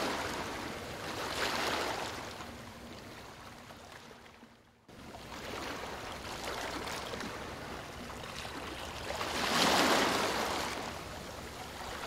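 Ocean surf washing in waves: one swell about a second and a half in that slowly fades, then another building to a peak near ten seconds. Just before five seconds in the sound dies away almost to nothing and comes back abruptly.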